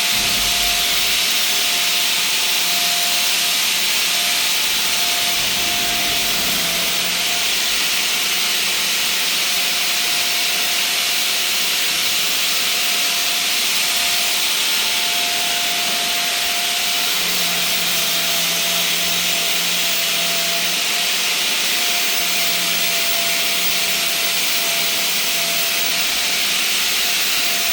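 A pulverizer grinding soybeans into flour, running steadily. It makes a loud, even rushing noise with a steady whine under it.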